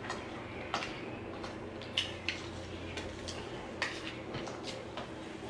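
Irregular light clicks and taps of tableware and food packaging being handled during a meal, a sharp tick every half second or so, over a low steady room hum.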